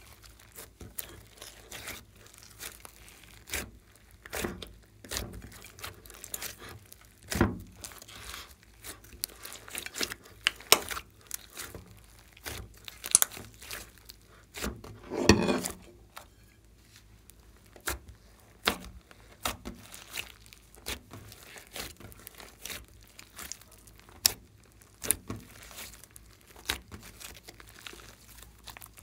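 Glossy slime with foam beads mixed in being kneaded, pressed and stretched by hand, giving a dense run of irregular wet clicks, pops and crackles. One longer, fuller squelch comes about halfway through.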